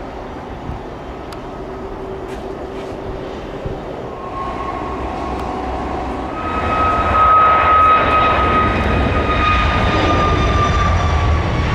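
Jet airliner's engines growing louder as it passes close by: a whining tone comes in about four seconds in, then a stronger one and a deep rumble, loudest around two-thirds of the way through. The whine then sinks slowly in pitch while the rumble stays loud.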